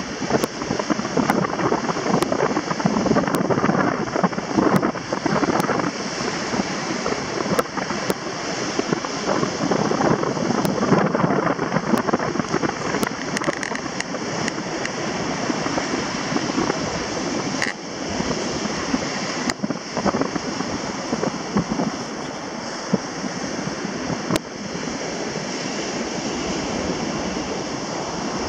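Ocean surf breaking and washing up a sand beach, with wind buffeting the microphone, gustier in the first half.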